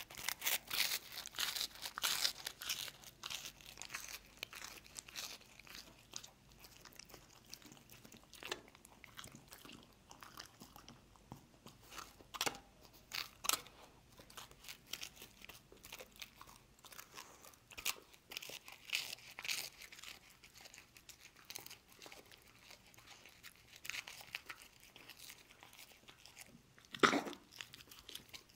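A dog crunching and chewing peanut butter toast: crisp bites come thickest in the first few seconds, then in scattered clusters with quieter chewing between, and one loud snap near the end.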